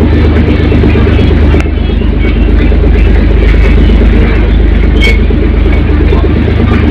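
Steady low drone of a passenger ferry's engines heard on deck while under way, with a rushing noise over it and a short sharp tick about five seconds in.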